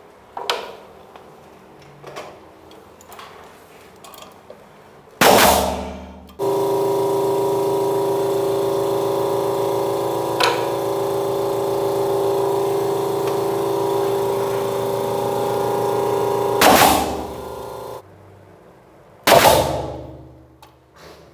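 An electric power saw runs at a steady pitch for about eleven seconds, cutting a blockboard panel to size. Loud sudden bangs, each fading over about a second, come just before it starts and three times near the end.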